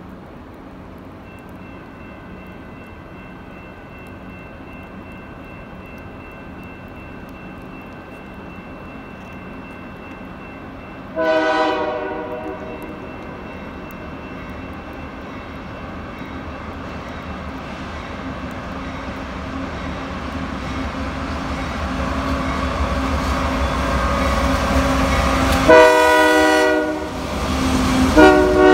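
Union Pacific freight train's diesel locomotives approaching and passing, their low rumble growing steadily louder. The air horn sounds a blast about eleven seconds in, then two louder blasts near the end as the locomotives go by.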